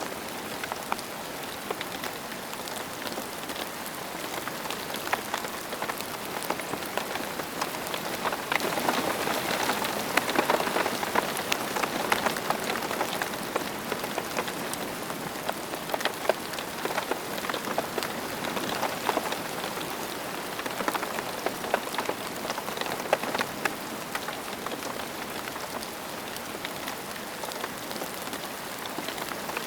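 Steady rain falling on a hard surface, a dense hiss with many individual drops ticking through it; it grows a little heavier for a few seconds about a third of the way in, then settles back.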